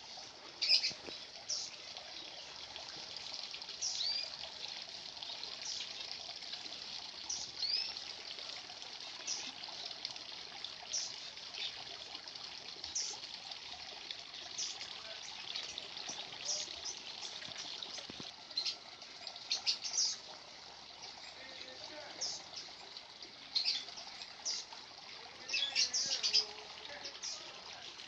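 Small birds chirping in short, scattered calls, some with quick rising notes, over a steady trickle of running water.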